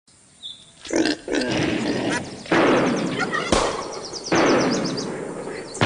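A series of loud, sudden bursts, about five, each trailing off over a second or so with a rapid rattling in the highs.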